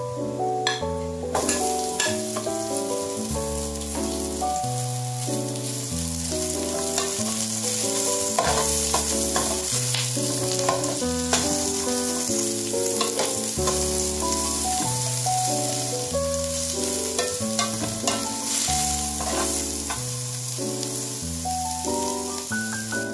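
Food sizzling in hot oil in a pan, starting about a second in, with scattered clinks of a utensil stirring it, under background music.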